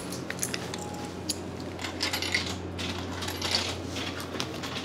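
Yen coins clinking as they are handled in a palm: a scatter of small metallic clicks, busiest about two seconds in and again around three and a half seconds, over a steady low hum.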